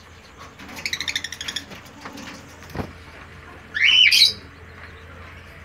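Lovebirds calling: a quick run of high chirps about a second in, then one loud, shrill screech rising in pitch about two-thirds of the way through.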